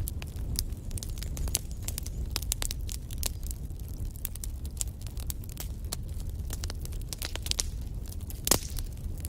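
Wood fire burning in a fireplace: logs crackling with frequent sharp, irregular pops over a steady low rumble of flame, with one louder pop near the end.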